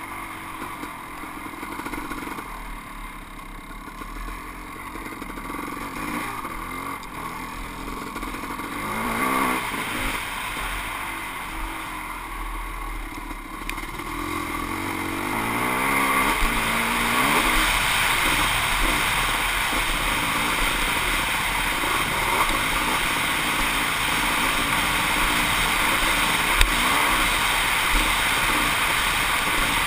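Kawasaki KX500 two-stroke dirt bike engine running along a trail, its pitch rising and falling as the throttle is worked, and louder from about halfway through. A single sharp knock a few seconds before the end.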